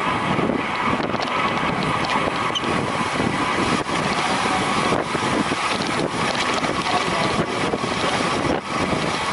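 Steady wind buffeting the microphone at racing speed, with a constant whirring hum underneath.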